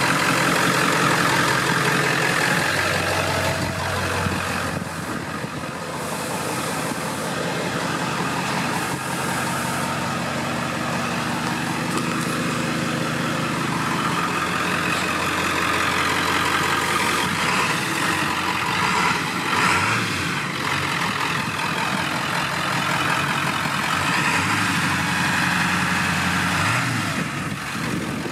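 1997 Ford F450's 7.3-litre V8 turbo diesel idling steadily.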